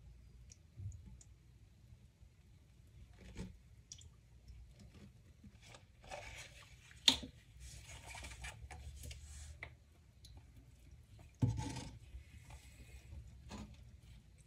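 Lestoil cleaner poured from a plastic bottle onto dry sponges in a stainless steel basin, with soft trickling, crackling and rubbing as the bottle is handled in rubber gloves. Two sharp knocks stand out, about seven and eleven and a half seconds in.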